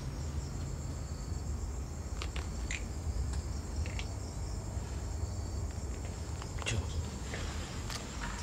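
Steady high-pitched chorus of night insects, cricket-like, with a low rumble of handling noise underneath and a few sharp clicks and scuffs scattered through.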